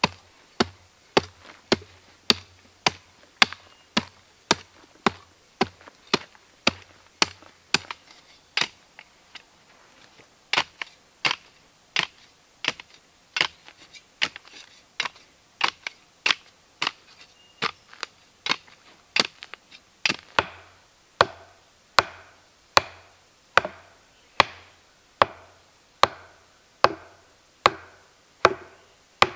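Small hand shovel chopping into hard, dry dirt in sharp, steady strokes, about two a second, with a short pause about nine seconds in. From about twenty seconds in the strikes turn to a woodier knock, a wooden baton driving a wooden stake.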